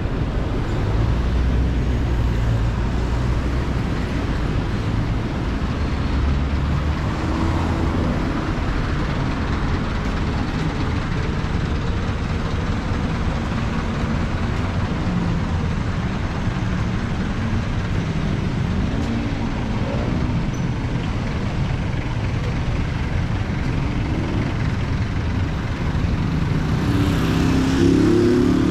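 Road traffic noise with vehicle engines running, their low hum shifting in pitch, a little louder near the end.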